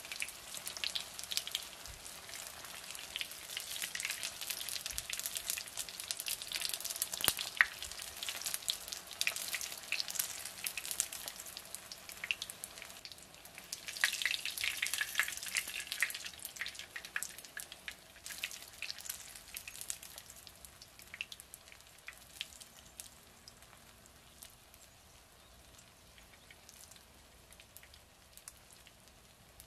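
Potato kofta patties shallow-frying in hot vegetable oil: a dense crackling sizzle with many small pops, louder for a couple of seconds about halfway through. In the last third the sizzle thins out and gets quieter.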